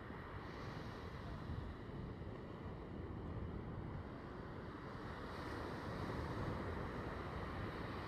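Wind buffeting the microphone over the steady rush of heavy surf from a typhoon swell.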